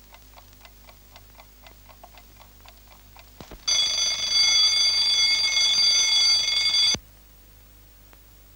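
Alarm clock ticking about four times a second. About three and a half seconds in, its bell rings loudly for about three seconds and then cuts off suddenly.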